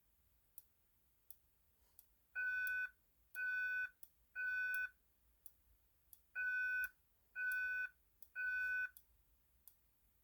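Fire alarm speaker strobe, set to its loud tone, sounding a temporal-3 evacuation signal: a buzzy tone in three half-second beeps about a second apart, a pause, then three more. A third group begins near the end.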